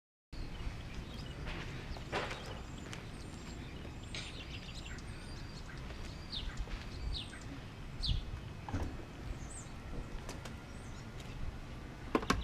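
Outdoor ambience: small birds chirping now and then, several short falling chirps, over a steady low rumble. A couple of sharp knocks come right at the end.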